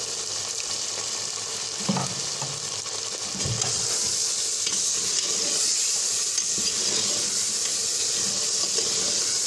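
Beef frying in oil and yogurt in an aluminium pot, sizzling steadily and louder from about three and a half seconds in, while a metal slotted spoon stirs it and knocks against the pot twice early on.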